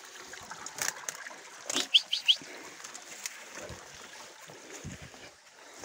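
Leaf litter and undergrowth rustling and crackling under someone moving fast through forest brush. About two seconds in, a bird gives three quick, short, high chirps.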